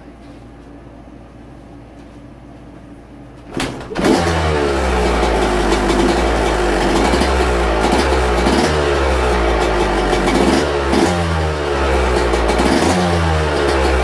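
Yamaha YZ125 125cc two-stroke single-cylinder engine being kick-started on its first fire-up with new reed petals; it catches about four seconds in and then runs, revved up and down again and again as it warms up.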